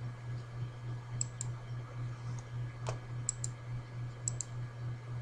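Light clicks at a computer, several of them in quick pairs, over a steady low electrical hum.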